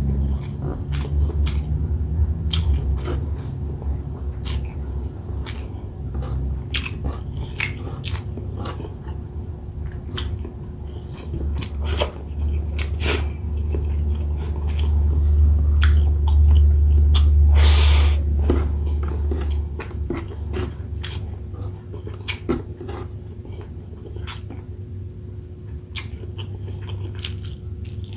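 Close-miked eating: chewing and biting chicken inasal with rice, with many irregular wet mouth clicks and smacks. A deep low rumble runs underneath and swells to its loudest around the middle.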